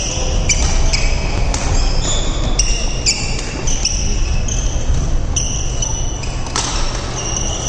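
Badminton rally: sharp cracks of rackets hitting the shuttlecock every second or so, with many short high squeaks of sneakers braking on the court floor, over a steady low hum of the hall.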